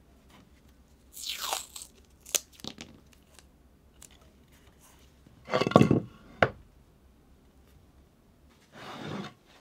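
Masking tape crinkling and tearing as it is pressed onto the corner of a glued-up hardwood cutting board, with hands rubbing and knocking on the wood. There are short rasping bursts, the loudest about six seconds in, and a few sharp clicks between them.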